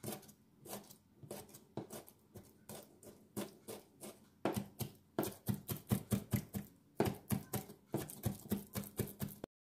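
Chef's knife mincing peeled raw shrimp on a plastic cutting board: a run of knocks of the blade on the board, slow at first, then quicker and louder from about halfway at about three to four a second, cutting off suddenly near the end.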